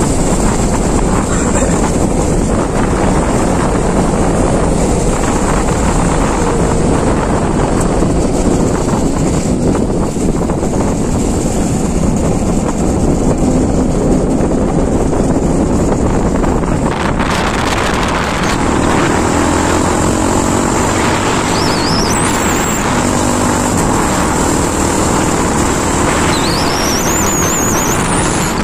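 Trail motorcycle running steadily as it is ridden, a dense engine and road noise with a steady engine note coming through in the second half. Two brief high-pitched rising squeals come in the last third.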